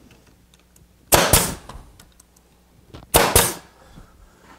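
Grex 18-gauge pneumatic brad nailer firing twice, about two seconds apart, driving brads into plywood; each shot is a sharp crack.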